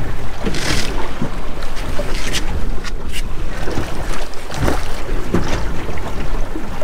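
Wind buffeting the microphone and sea water washing along the hull of a small boat, steady throughout, with a few short sharp sounds scattered through it.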